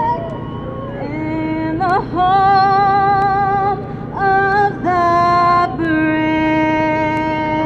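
A woman singing solo through the track's loudspeakers in long, held notes with vibrato, the last note held long near the end.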